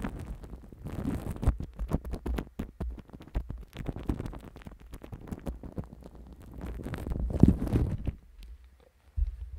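Fingertips rubbing and tapping on a microphone wrapped in plastic cling film and smeared with white cream, heard right at the microphone: crinkling plastic with many small crackles over a deep rumble of handling. It quiets about a second before the end.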